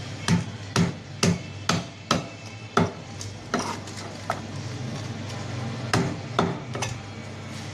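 A cleaver knocking against a large red snapper on a wooden chopping block: about six sharp strokes roughly two a second, a pause, then a few more strokes about six seconds in. A steady low hum runs underneath.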